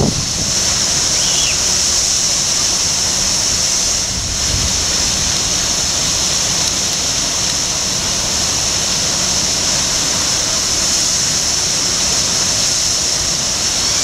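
Large fountain jet of water rushing and splashing steadily into its basin, a continuous hiss of falling spray.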